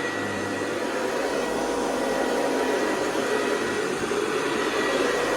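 Hoover Convertible 704 upright vacuum cleaner running steadily, its motor giving an even rushing sound with a thin high whine held on one pitch.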